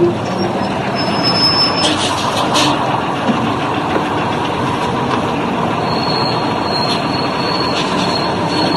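A large vehicle running with a steady rumble, with thin high squealing tones about a second and a half in and again through the second half.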